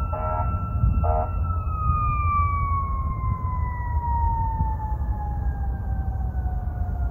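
A siren holding one steady tone for a second or so, then winding slowly and evenly down in pitch over several seconds, over a low steady rumble.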